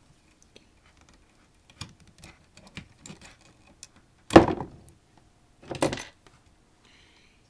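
Handling noise of an EIDE hard drive being worked at its cables in a plastic enclosure: scattered light clicks and rattles, then a loud knock a little past halfway and a second clatter about a second and a half later.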